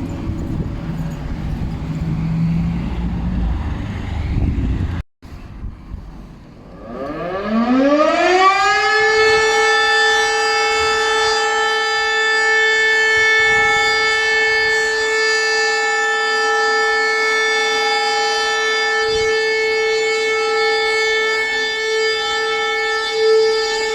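An outdoor civil-defence alarm siren winds up over about two seconds and then holds one steady, loud tone. Before it starts, a low rumble cuts off abruptly.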